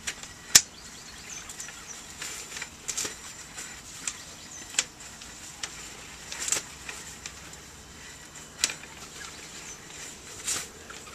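Scattered clicks and knocks at irregular intervals as a sewer inspection camera's push rod is fed by hand from its reel into a 4-inch PVC pipe, the sharpest about half a second in, over a faint steady high tone.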